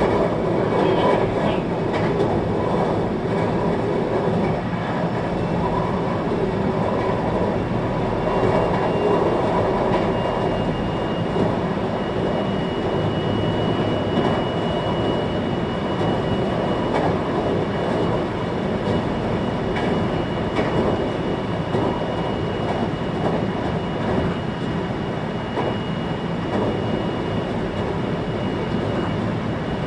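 Running noise of a 521-series electric multiple unit heard from inside the passenger car: a steady rumble of wheels on rail. A faint high steady whine comes in about eight seconds in and holds.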